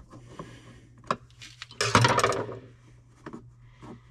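Clicks and taps of a hand screwdriver and plastic cab trim being worked loose by hand, with a short, loud rattling clatter about two seconds in.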